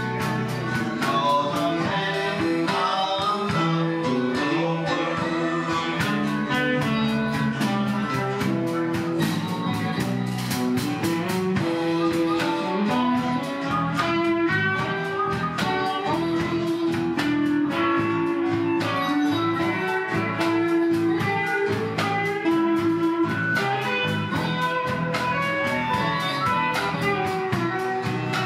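Live band playing a country-blues song on electric guitars and banjo over drums, with a steady beat.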